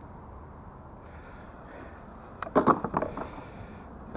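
Steady faint outdoor hiss, then a quick cluster of clattering knocks about two and a half seconds in: metal magnet-fishing finds landing on a concrete quay.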